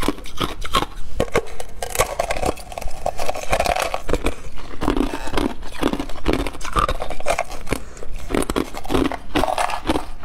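Close-miked biting and chewing of a thin shell of green ice moulded as a hollow pineapple: crisp crunches and cracks, several a second, as the brittle ice breaks between the teeth.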